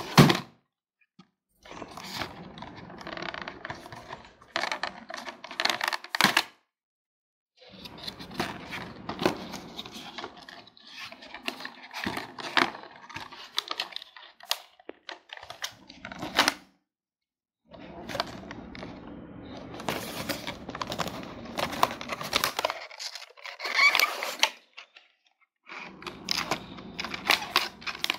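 Cardboard packaging being opened and handled: rustling, scraping and sharp clicks as the box flaps are opened and the inner tray is slid out, in several stretches broken by short silences.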